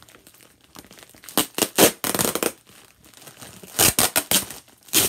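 Crinkly white packaging crumpled and rustled by hand during unwrapping, in two bouts of loud crackling: about a second and a half in, and again from about four seconds in.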